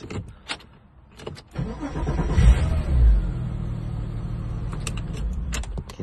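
Porsche Cayman 987's flat-six engine started with a newly made aftermarket key: a few clicks, then it cranks and catches about two seconds in, flares briefly and settles into a steady idle.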